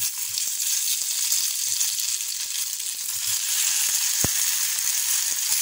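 Marinated beef slices sizzling in hot oil as they are laid into the frying pan, a steady hiss that grows a little louder partway through. A single brief click about four seconds in.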